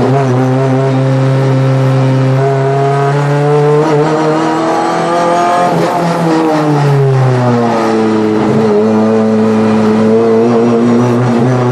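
Renault Clio III Cup race car's four-cylinder engine heard from inside the cockpit, pulling in third gear: the revs climb for about five seconds, fall away for a couple of seconds as the car slows, then build steadily again.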